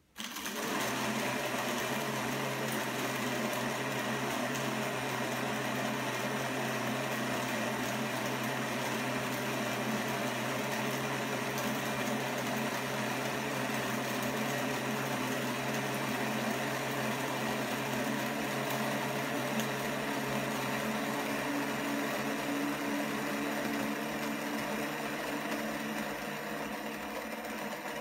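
Titus coffee grinder starting up and running steadily, its electric motor humming while the burrs grind coffee beans into a portafilter.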